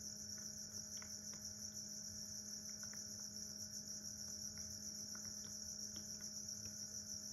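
A steady high chorus of crickets, with a faint low steady hum beneath.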